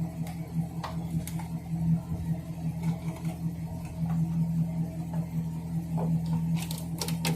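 Vehicle engine running steadily at idle, with scattered light clicks and knocks over it, a quick cluster of them near the end.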